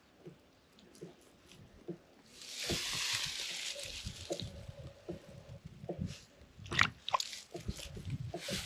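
Wet mud and water being worked by hand: squelching and sloshing, with a rushing splash about two to four seconds in, then scattered knocks and squishes.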